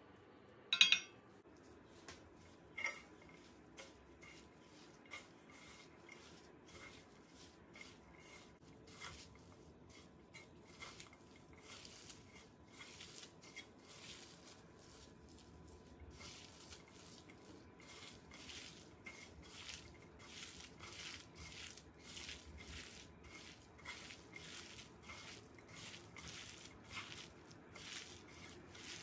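A metal spoon clinks against an aluminium pan about a second in and again near three seconds. Then gloved hands squish and toss shredded potato with spices in the pan: soft, quick rustling squelches, several a second.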